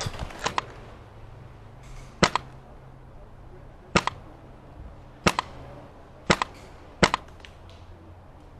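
Airsoft rifle (Krytac SPR with a PolarStar Kythera HPA engine) firing single shots, about six sharp cracks spaced roughly a second apart.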